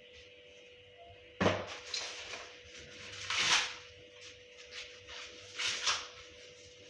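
Husks of fresh maize cobs being torn and peeled off by hand: a sharp tearing snap about a second and a half in, then several crackling, rustling pulls.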